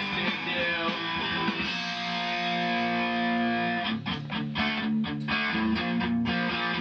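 Band music led by a distorted electric guitar: a chord is held and rings for about two seconds, then short, choppy chords follow with sharp gaps between them.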